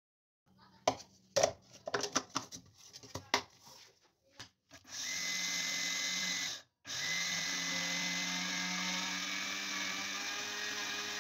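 A few sharp knocks and taps as sesame is tipped and tapped out of a plastic bowl into a blender jar, then a small electric blender grinding the sesame with a steady whirr and whine. The motor stops briefly after about two seconds and starts again.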